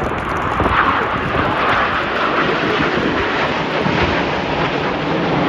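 A fixed-wing aircraft flying by, its engine noise loud and steady throughout.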